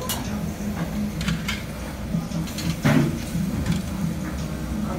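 Metal tongs clicking and knocking against the charcoal grill's wire grate and the scallop shells, several short knocks with the loudest about three seconds in, over a steady low background din.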